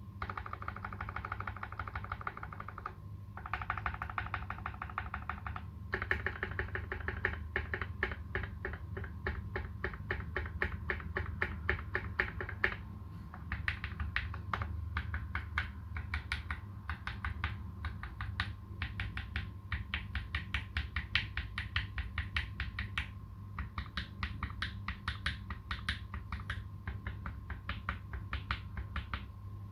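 Fast, continuous typing on a custom Space65 65% mechanical keyboard with lubed Tealios v2 linear switches and PBT keycaps, many rapid key clicks broken by a few short pauses. A faint steady hum runs underneath.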